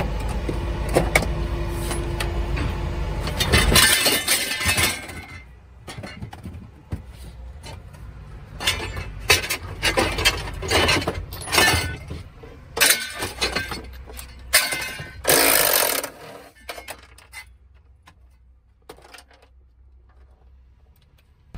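A cordless power tool run in short bursts on bolts, with metal clinks and knocks of bolts and tools being handled. A steady low rumble fills the first few seconds, and the sounds thin out near the end.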